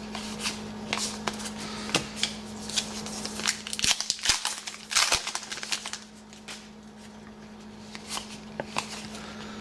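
A foil trading-card pack wrapper being torn open and crinkled in the hands: a run of crackling clicks, busiest about three to five seconds in. After that comes the softer rustle and tick of the cards being handled.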